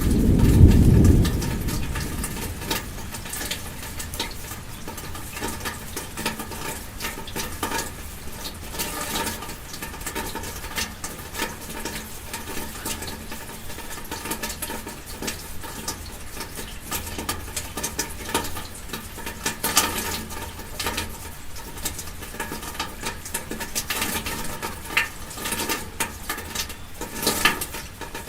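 Raindrops pattering irregularly on a car, heard from inside the car. A low rumble dies away in the first couple of seconds.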